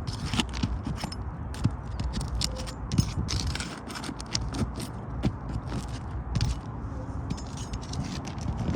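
Asphalt roof shingles being pried up and worked loose: an irregular run of scraping and sharp crackling clicks as the seal strips tear and the shingles flex.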